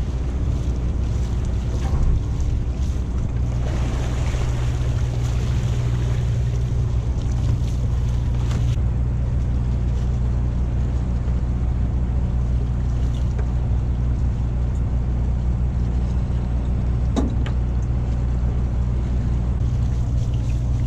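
A boat's engine running steadily with a low drone, with a spell of splashing or wind hiss over it for a few seconds early on and a single sharp click near the end.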